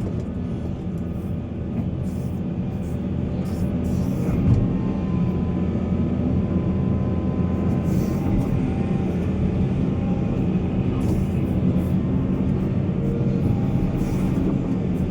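Heavy diesel earthmoving machinery running steadily, with a low engine drone throughout and a slight rise in level about four seconds in.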